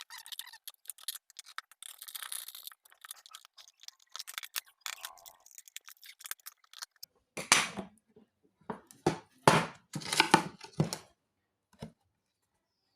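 Hand tools scraping and prying at the silicone-sealed glass front of an LED flood light, cutting the sealant so the glass comes away from the metal housing. Scattered small clicks and scrapes come first, then, a little past halfway, a run of louder scraping and cracking strokes.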